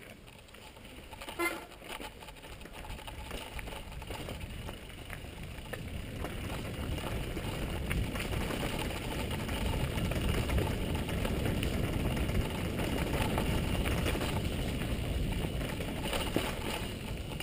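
Mountain bike descending a gravelly dirt trail: tyres rolling and rattling over loose stones with wind on the microphone, growing louder as it picks up speed. A short squeal comes about a second and a half in.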